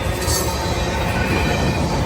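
CSX freight train rolling past: a steady rumble of wheels on rail, with a brief high squeal from the wheels about a third of a second in.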